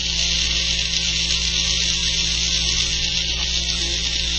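Small battery-powered K'nex toy motor running, a steady electric whir as it spins a brick on its output shaft.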